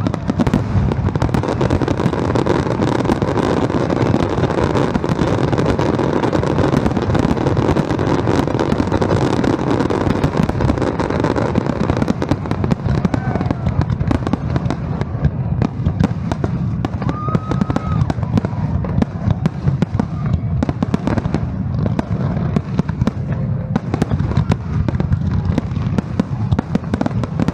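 Fireworks display: a dense, continuous barrage of overlapping bangs and crackling bursts with no pause.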